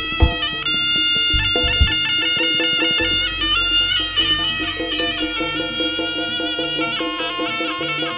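Live jaranan music: a shrill, reedy slompret (Javanese shawm) melody over a steady quick rhythmic accompaniment, with a few low drum strokes in the first two seconds.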